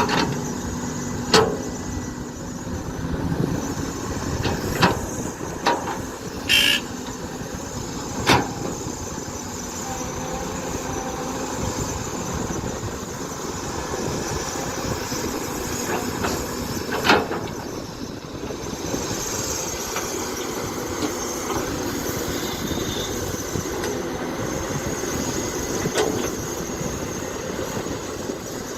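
Excavator engine running steadily under work, with occasional sharp metal knocks and clanks and one brief high squeal.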